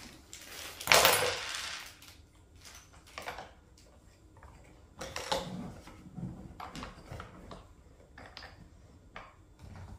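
Small metal hardware, washers and nuts, clinking and being handled, with scattered light taps and a louder rustle lasting about a second, starting about a second in.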